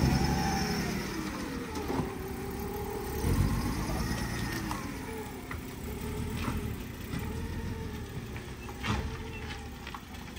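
BMW E46 coupe's engine running as the car pulls away at low speed, its revs rising and falling several times.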